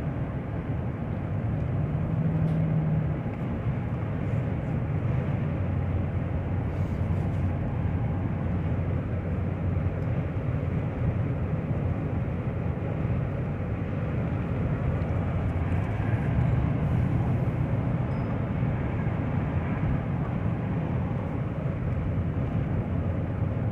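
Car driving along with a steady engine and road-noise rumble, on a road test of an engine with a random misfire across several cylinders.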